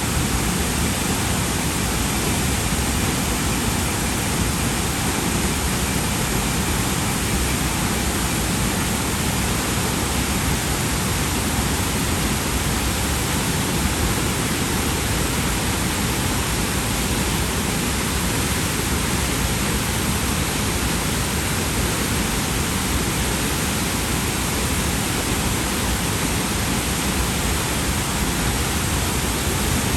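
Waterfall roaring steadily: a loud, even rush of falling water with no change.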